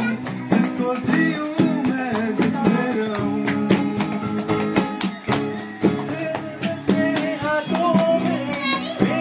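Acoustic guitar strummed as accompaniment while young men sing along.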